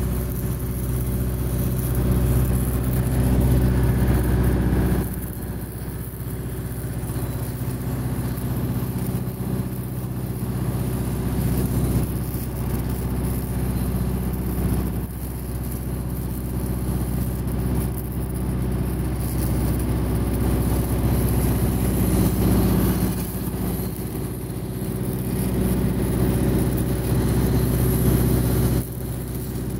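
A steady engine drone with a stack of low hum lines, under the crackle of a stick-welding arc running a 3.2 mm electrode on a steel pipe joint. The drone drops in level suddenly about five seconds in and again near the end.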